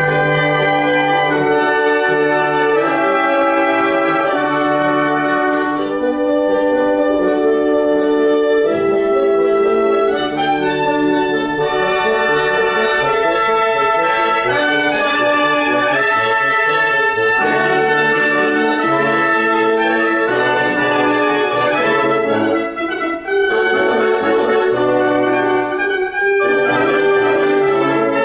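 Woodwinds, horns and trumpets playing a loud passage together: sustained chords over held low bass notes. The passage starts abruptly, with two brief breaks near the end.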